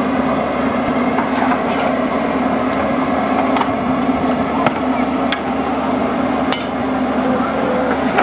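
Miniature live-steam locomotive standing with a steady hiss and hum of steam, broken by a few short sharp metal knocks as the fire is stoked.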